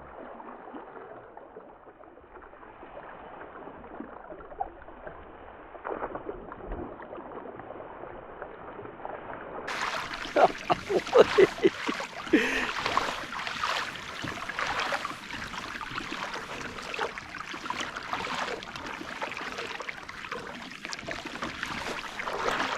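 Water sloshing and splashing around a kayak hull, low at first, then louder with a run of sharp splashes about ten seconds in.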